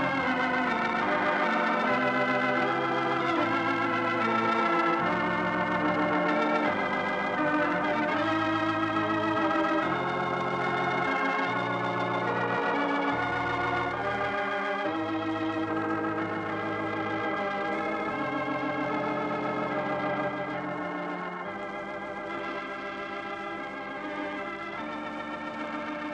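Organ playing the program's closing music: held, wavering chords that change every second or two, growing somewhat softer about twenty seconds in.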